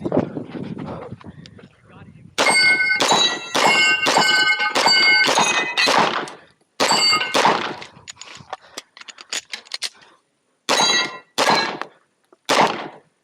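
Rapid gunshots hitting steel targets, each hit followed by the plates ringing: a fast string of about eight shots, a pause, two more, then a few more near the end.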